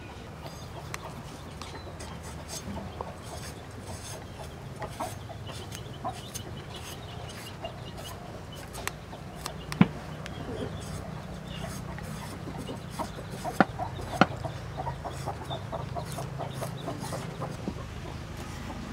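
Knife work on a potato: the blade scraping and paring the skin, with a few sharp knocks on a wooden chopping board, the loudest about ten and fourteen seconds in. Chickens cluck in the background.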